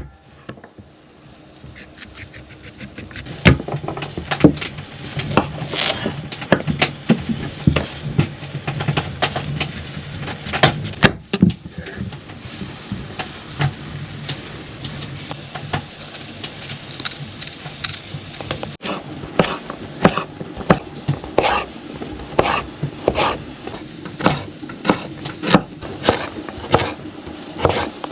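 Food preparation with utensils: a run of sharp taps and knocks, settling in the last third into a steady rhythm of about one and a half taps a second, over a low hum.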